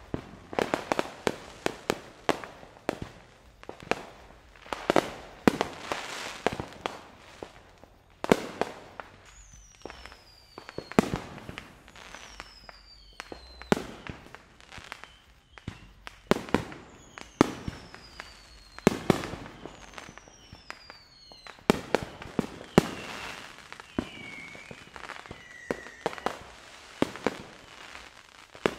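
Fireworks going off all over a town: a steady run of bangs and bursts at many distances. Several high whistles fall in pitch about a third of the way in.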